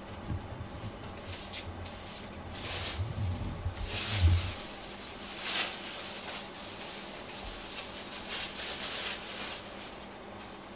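Close, soft rustling: several short hissy bursts of noise with low bumps in the first half, the handling noise of the camera being moved.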